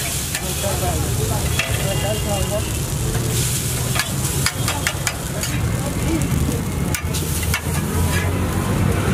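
Chow mein noodles being tossed and stirred with a metal spatula on a large flat griddle, with a steady sizzle of frying and sharp clacks of metal on the hot iron here and there.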